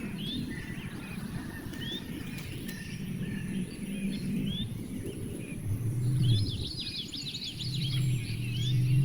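Small birds chirping: repeated short rising chirps, with a quick flurry of rapid chirps about six seconds in. A low hum swells underneath at times.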